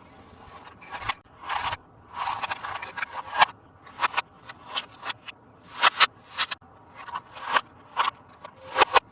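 Hands handling a plastic toy and its packaging: irregular sharp plastic clicks and short rustling scrapes, a few every second.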